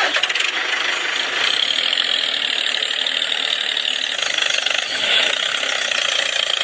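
Small engine of a homemade model tractor running steadily with a rapid, even pulsing as the tractor drives off towing a trolley.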